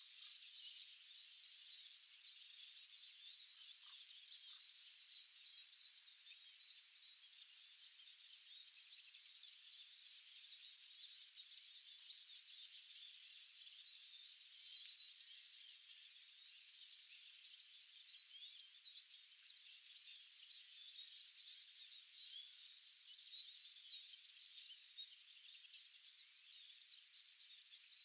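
Faint, continuous chorus of many small songbirds chirping and twittering over one another, with no single song standing out.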